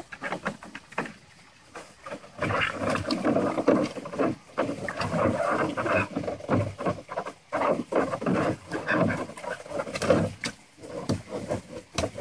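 A cairn terrier splashing and sloshing in a shallow plastic kiddie pool as he noses underwater for his bone, mixed with the dog's own noises; it gets louder and busier about two seconds in.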